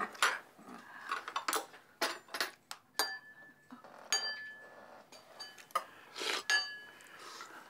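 Spoons and chopsticks clinking against ceramic bowls and plates during a meal: a scatter of light clinks, two of which ring on briefly about three and four seconds in.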